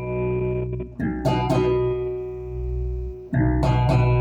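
Hohner B Bass V electric bass played through a floor monitor in active mode with the bass control turned up: plucked notes left ringing, with new notes struck about a second in and again just past three seconds.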